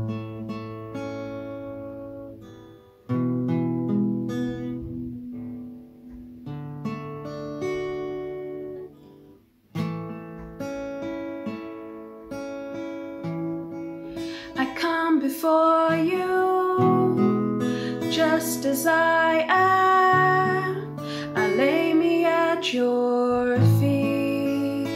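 Acoustic guitar playing slow chords as a song intro, joined a little past halfway by a woman singing a worship song.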